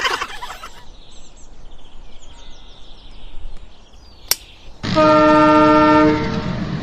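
A train horn blows once, loud and steady for about a second and a half, shortly after a sharp click, then gives way to a steady rumbling vehicle noise.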